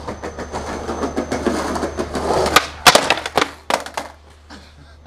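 Skateboard wheels rolling on concrete, then, about two and a half seconds in, a quick run of sharp clacks and slams as a trick attempt fails: the board hits and clatters away and the skater falls.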